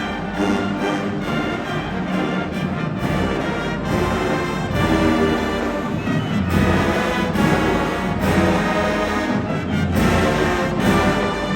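High school marching band playing, brass section holding full chords over drum hits.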